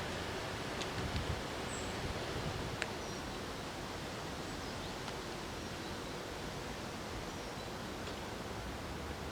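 Steady outdoor background noise with a light rustle of wind, and a few faint, short high chirps from birds.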